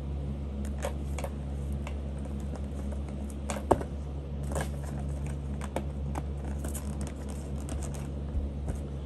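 Scattered light clicks and taps of small things being handled by hand, with one sharper click nearly four seconds in, over a steady low hum.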